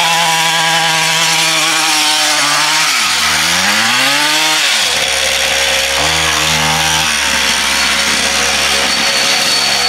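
50 cc two-stroke mini motocross engine revved in three bursts, its pitch climbing and falling each time, then settling to a lower steady buzz as the bike rides off.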